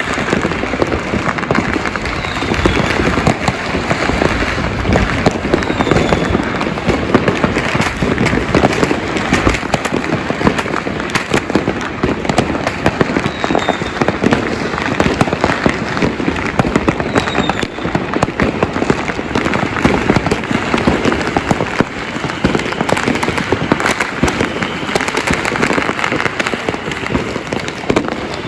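Many fireworks and firecrackers exploding at once: a continuous crackle of overlapping bangs with no pause.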